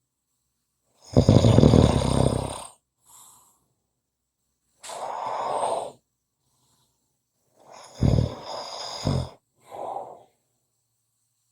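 A person snoring: two loud snores with a deep rumble, about a second in and near eight seconds, each followed a couple of seconds later by a quieter, breathier sound, with silent pauses between breaths.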